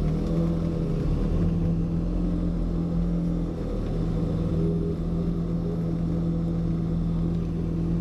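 Snow-plow truck's engine running steadily as it pushes snow with the front plow blade, a steady drone with a short dip a little over three and a half seconds in.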